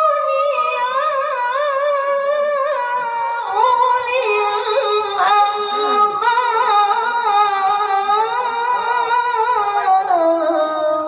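A boy's melodic Quran recitation (tilawah) into a microphone: one long unbroken phrase, held and richly ornamented, with the voice wavering and sliding before falling in pitch near the end.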